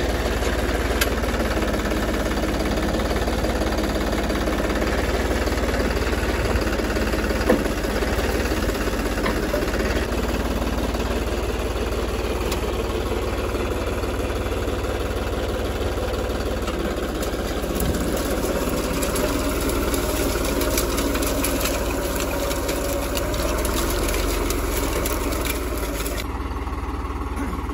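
New Holland 3630 tractor's three-cylinder diesel engine running steadily under load while pulling a mounted reversible mouldboard plough through the soil. One brief knock about seven and a half seconds in.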